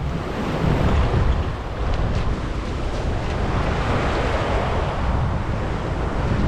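Wind buffeting the microphone over the wash of sea water, with the water noise swelling about four seconds in.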